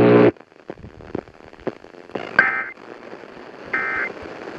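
Emergency Alert System end-of-message data bursts over broadcast radio: two short, shrill, warbling screeches about a second and a half apart, signalling that the alert has ended. Before them a steady tone cuts off just after the start, and faint clicks and crackle follow.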